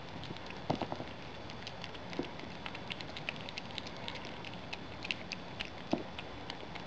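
Brushtail possum chewing banana: a steady run of small, quick, wet clicks and smacks, with a few louder clicks about a second in, at about two seconds and near six seconds.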